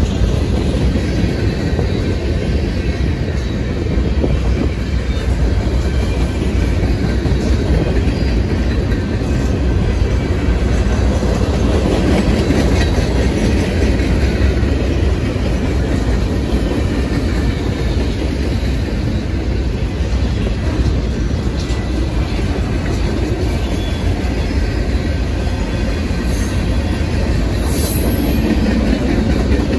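Freight cars of a manifest train rolling past, a steady rumble of steel wheels on the rails with clicking from the wheels over the track.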